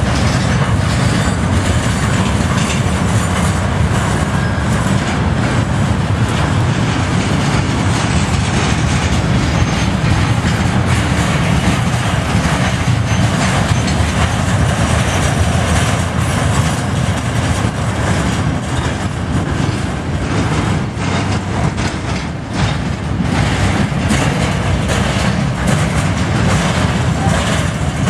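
Freight train of bulkhead flatcars loaded with steel slabs rolling past: a steady, loud rumble of steel wheels on rail with scattered wheel clicks, thicker in the second half.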